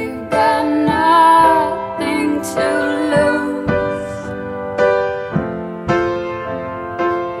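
Music: a slow song with a woman singing over sustained piano-like chords.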